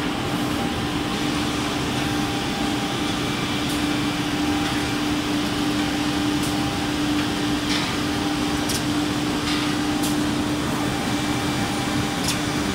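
Six-sided CNC panel drilling machine running with a steady whirring hum and a constant low tone. Several short sharp clicks come at irregular moments as it handles the panel.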